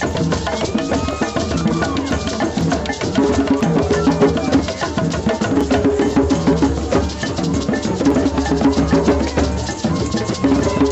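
Drum circle: many djembes and other hand drums played together in a fast, dense, steady rhythm, with a tambourine and sticks striking small drums among them.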